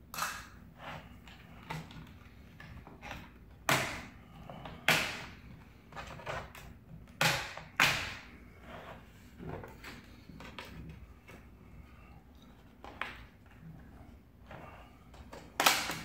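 Plastic bottom cover of an Acer Predator Helios 300 laptop being pried off by hand: a run of sharp clicks and snaps as its clips let go, the loudest between about four and eight seconds in and one more near the end.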